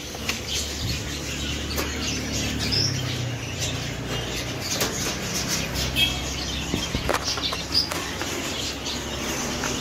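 Zebra finches fluttering their wings and giving a few short, high chirps, over a low rumble and scattered clicks from the phone being handled against the cage wire.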